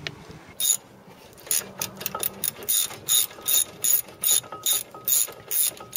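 Socket ratchet wrench clicking in quick, regular back-swings, about two to three clicking strokes a second starting just after half a second in, as it spins out an already-loosened 15 mm brake caliper bracket bolt.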